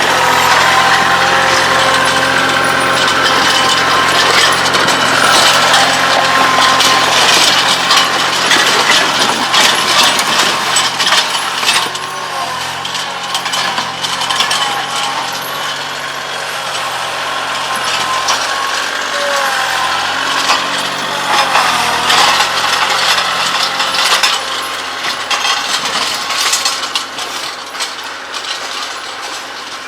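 Kioti CK2610 compact tractor's three-cylinder diesel engine running, with dense metallic clanking and rattling over it. The engine hum fades out after about twenty seconds while the clatter goes on.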